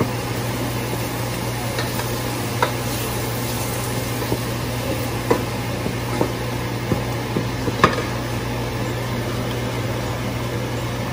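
Onion and ginger-garlic paste with spices frying in ghee in a stainless steel saucepan, a steady sizzle, while a wooden spatula stirs and now and then knocks lightly against the pan. A steady low hum runs underneath.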